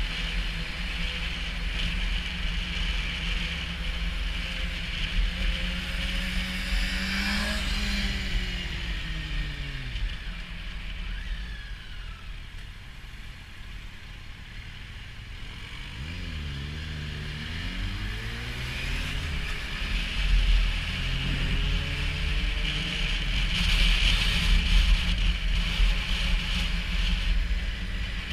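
Motorcycle engine heard from the rider's own bike: it revs up, then winds down as the bike slows to a stop and idles quietly. It then pulls away with several rising revs as it shifts up through the gears, and a rushing noise builds near the end as speed picks up.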